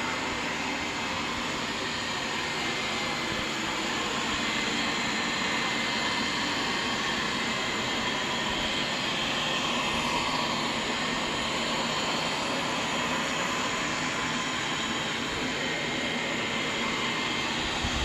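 Dyna King R7 robot vacuum running, its suction motor giving a steady whirring whoosh.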